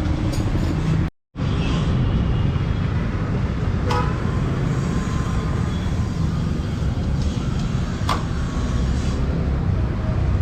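Steady low rumble of motor vehicle engines, with two sharp metallic clicks, about four seconds apart.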